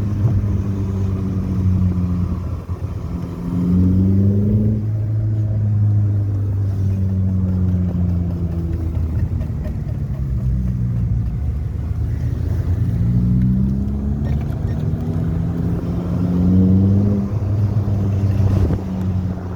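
Alfa Romeo 147 Twin Spark four-cylinder petrol engine running, its pitch rising twice as the revs climb and then easing back. It is recorded to show a noise fault on the car.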